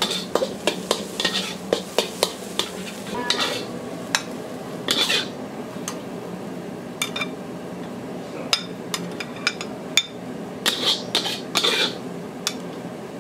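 Metal ladle scraping and clanking against a wok while stir-frying fried rice: a quick run of sharp clanks in the first half, fewer later as the rice is scooped out onto a plate, with a steady low hum underneath.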